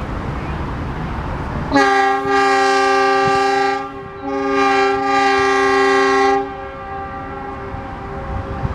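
Loud multi-tone air horn sounding two long, steady blasts with a brief break between them.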